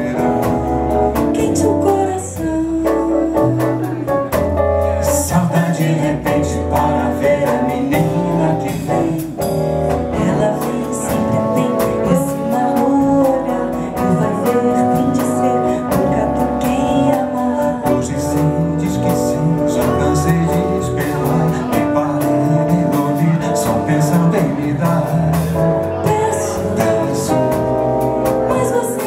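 Live bossa nova band playing, with keyboard, saxophone, trumpet, electric bass and drum kit.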